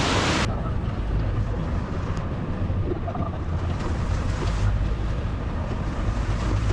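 A brief rush of waterfall noise cuts off about half a second in, giving way to a steady low rumble of wind buffeting the microphone and a moving vehicle's engine.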